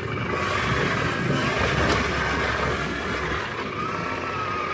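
KTM 790 Adventure R's parallel-twin engine running steadily on a loose, sandy downhill trail, with steady wind and dirt noise around it. A faint high whine comes in near the end.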